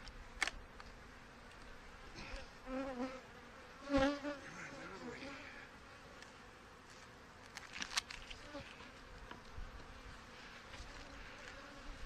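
Honeybees buzzing around an open hive, with single bees flying close past the microphone about three and four seconds in, their buzz swelling and bending in pitch. A few light clicks come between.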